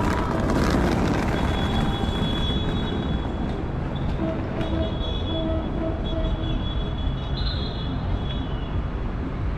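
Downtown street ambience: a steady rumble of road traffic from passing cars, with thin high tones coming and going over it.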